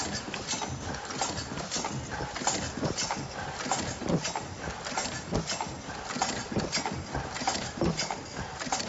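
Automatic face-mask making machine running, with a rapid, irregular clatter of mechanical clicks and knocks, several a second, over a steady machine hum.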